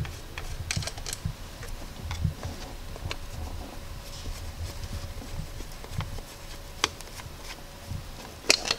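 Scattered light clicks and taps of a screwdriver and fingers working the hold-downs of a Ford marine distributor cap among the spark plug wires, as the cap is taken off. A few sharper clicks come about a second in and near the end.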